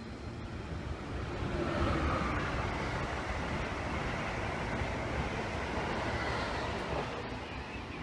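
Amtrak Amfleet passenger cars rolling past close by: a steady rush and rumble of steel wheels on rail, growing louder about a second and a half in and easing near the end, with a faint high whine over it.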